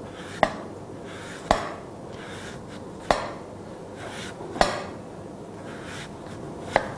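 Large kitchen knife slicing a sour green mango on a wooden cutting board, the blade knocking the board five times at uneven intervals of about a second and a half.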